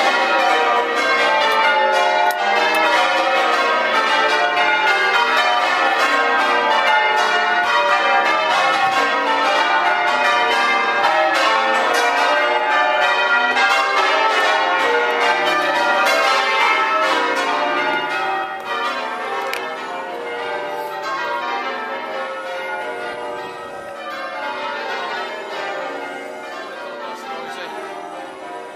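A ring of church bells in change ringing: a rapid, even, unbroken stream of strikes, each bell sounding in turn. It turns noticeably quieter about two-thirds of the way through.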